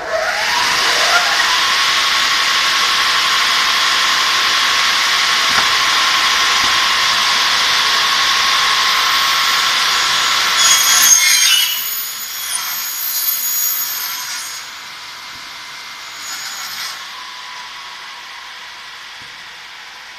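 Elumatec DG 79 double mitre saw's two electric blade motors switched on, whining up in pitch over the first second or so, then running steadily and loud with a high whine. About 11 seconds in comes a louder, shriller, uneven passage, typical of the blades cutting through the aluminium profile, after which the sound drops to a quieter, steady whir.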